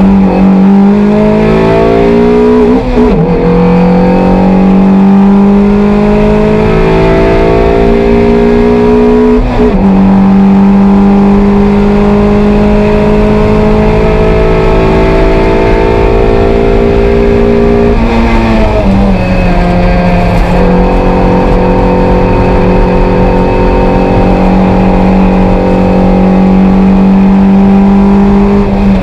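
Toyota MR2 race car engine at high revs under load, heard from inside the stripped cabin. The pitch climbs steadily and breaks and resets three times, around 3, 10 and 19 seconds in, as the driver shifts gears or lifts off.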